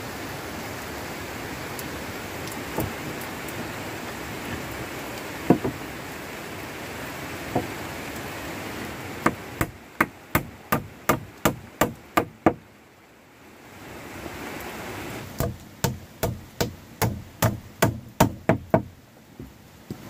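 Hammering on wood in two runs of about ten to twelve sharp strikes each, roughly two to three a second, the first starting about nine seconds in and the second about fifteen seconds in. A steady hiss runs under the first half, with a few single knocks.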